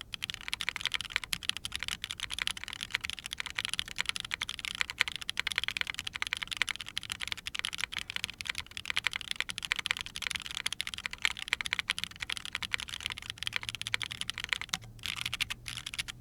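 Rapid typing on a Neson Design N6-65 keyboard fitted with lubed Neson Design Camping Life linear switches (JWK-made), on an aluminium plate with flex-cut PCB and plate and no foam. The keystrokes are clacky, with a clean bottom-out and a slightly quieter top-out, and there is a brief pause in the typing near the end.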